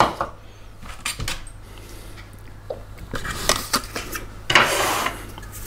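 Stainless steel mixing bowl of a Monsieur Cuisine Connect food processor being lifted out and handled: scattered light metal clinks and knocks, then a louder scraping rattle near the end.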